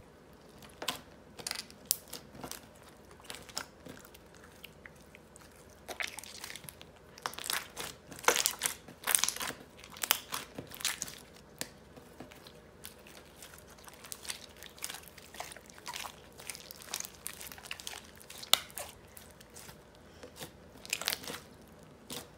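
Clay cracking: a hardened clear shell on a ball of soft clay crackles and crunches as fingers press and knead it. The sharp crackles come in irregular bursts and are thickest in the middle stretch.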